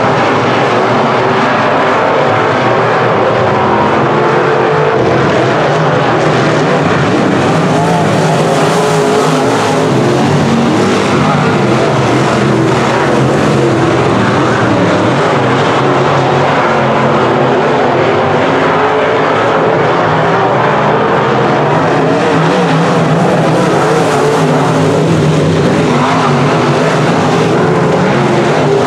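Several dirt-track semi-late model race cars running hard on the oval, their V8 engines sounding loudly and without a break, rising and falling in pitch as the cars pass.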